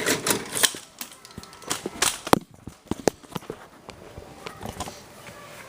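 Clicks and clacks of a VHS cassette and its case being handled: a quick run of sharp knocks, the loudest a little over two seconds in, thinning out after about three and a half seconds.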